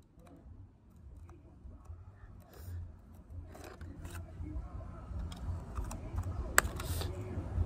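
Scattered light scrapes and small clicks of a stick scraping mud off a remote control car, with one sharp click about six and a half seconds in.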